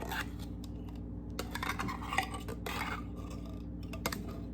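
A spoon scraping and clinking irregularly as thick condensed cream of chicken soup is scooped out and spread over a pie crust in a pie plate, with one sharper click near the end. A steady low hum runs underneath.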